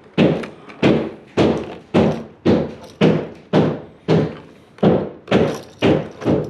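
A steady run of heavy knocks, about two a second and about a dozen in all, each dying away quickly.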